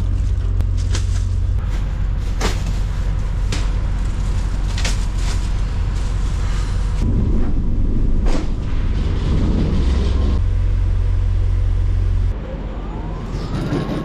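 Steady low drone of the trailer's refrigeration unit running, with scattered knocks and clatter as crates and a pallet are moved across the trailer floor. Near the end the drone drops away and a rising whine follows, from an electric pallet truck's motor.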